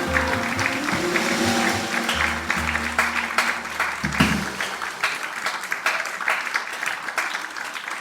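A live band's closing notes, a deep bass tone and held chords, ringing out and stopping about five seconds in, while an audience breaks into applause that carries on after the music ends.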